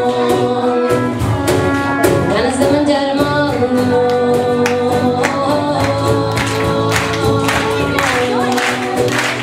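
A live song: a girl singing to a strummed acoustic guitar, with a trumpet playing along.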